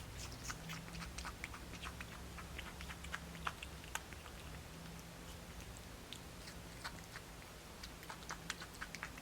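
Squirrel monkey chewing juicy watermelon: soft, irregular wet clicks of eating, over a faint low hum.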